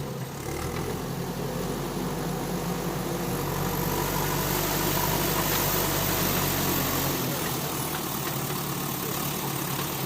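Backhoe loader's diesel engine running steadily. A deep low rumble under it drops away about seven seconds in.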